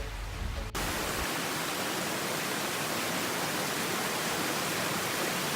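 Steady rushing of a rocky mountain creek, an even hiss of water tumbling over rocks. It cuts in abruptly just under a second in, replacing a low rumble.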